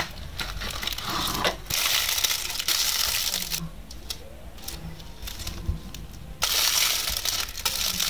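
Clear plastic wrap crinkling as it is pulled off a stack of washi tape rolls, in two spells of rustling, about two seconds in and again near the end, with light clicks between them.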